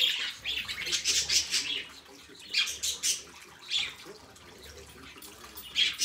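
A small flock of budgerigars chirping and chattering, a dense run of quick high chirps for about two seconds, then scattered single chirps.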